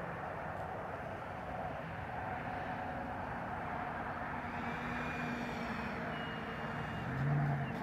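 Faint whine of a 90 mm electric ducted fan RC jet on its landing approach, over a steady outdoor rumble.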